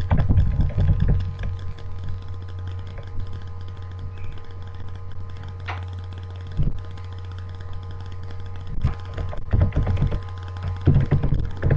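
Typing on a computer keyboard, with clusters of louder thumps in the first second or so and again near the end, over a steady low electrical hum.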